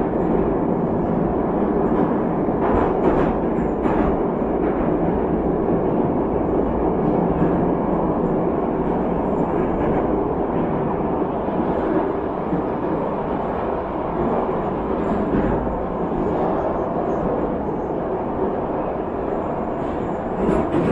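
Metro train running between stations, heard from inside the passenger car: a steady rumble of wheels and running gear on the track, with a few sharp clicks about three to four seconds in.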